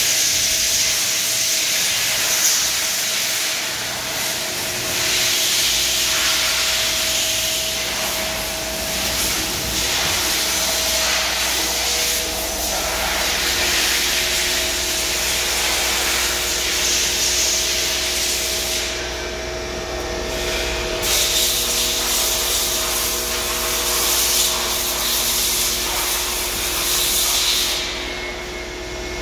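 KIA KIT 30B CNC lathe running a program, its spindle turning at about 2000 rpm: a steady machine whine over a continuous hiss, with a low hum coming in about five seconds in.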